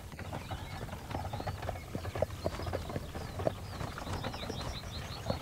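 A horse's hooves clip-clopping on a dirt road as it pulls a wooden cart, over a low steady rumble of the cart's wheels. A quick run of high chirps comes near the end.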